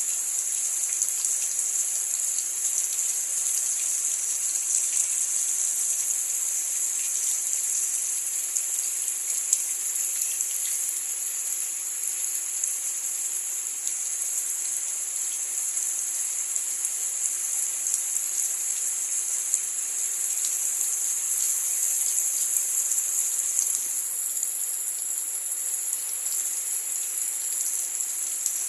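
Steady rain, with scattered drops ticking.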